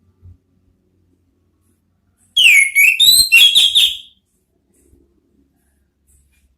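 Orange-headed thrush giving one loud, short whistled song phrase of quick sliding notes, lasting under two seconds, a little past the middle.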